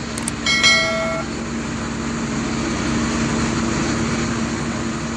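Heavy excavator diesel engine running steadily. About half a second in, a couple of clicks come just before a brief high-pitched metallic squeal.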